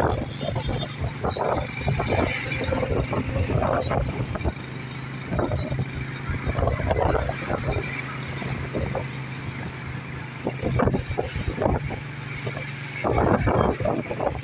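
Road noise from riding in a moving vehicle: a steady engine hum under irregular gusts of wind on the microphone, with other traffic passing close by.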